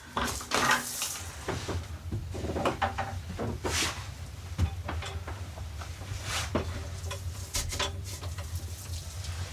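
Irregular knocks, clatters and rustles of objects being handled, several a second, over a steady low rumble.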